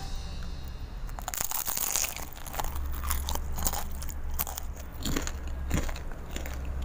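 Crisp fried wonton-skin cones filled with fried instant noodles being bitten and chewed, a run of sharp, irregular crunches starting about a second in.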